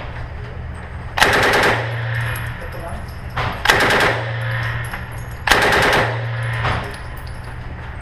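Compact submachine gun firing on full auto in three short bursts of several rapid shots each, about two seconds apart, echoing in an indoor range lane.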